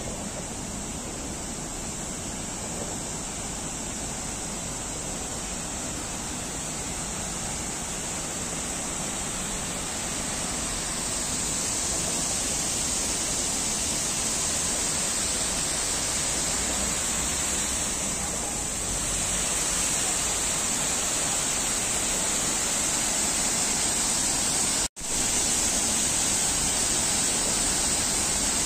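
Artificial rock waterfall cascading into a pond: a steady rush of falling water that grows louder as it is approached. The sound cuts out for an instant near the end.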